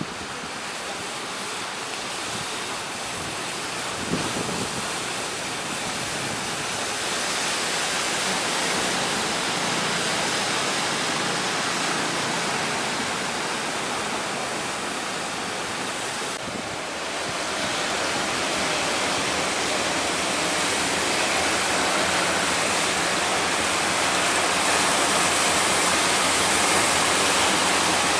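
Big waves breaking as heavy surf, a continuous roaring rush that swells louder a few times.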